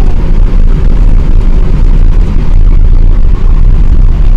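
Loud, steady low rumble of an Airbus A380 heard from inside the passenger cabin: engine and airflow noise with no pauses.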